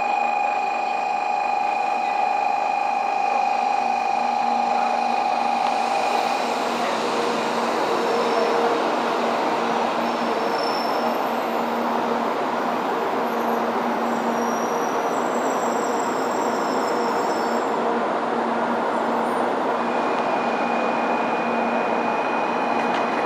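A 700 Series Rail Star shinkansen slides along the station platform. Its wheels and air make a steady, dense rush that builds from about six seconds in, after a steady high-pitched tone that fades at about the same point.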